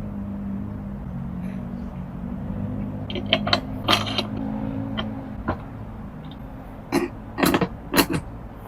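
A low, steady engine-like drone that fades out after about six seconds, with sharp clacks and pops on top: a quick cluster about three seconds in, and three or four louder ones about seven to eight seconds in.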